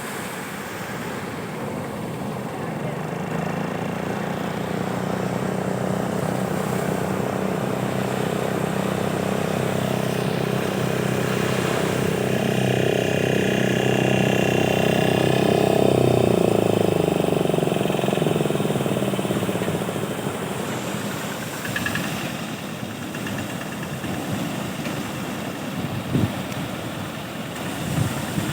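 An engine running steadily, growing louder over about fifteen seconds and then fading as its pitch drops: a motor passing by. Two short knocks near the end.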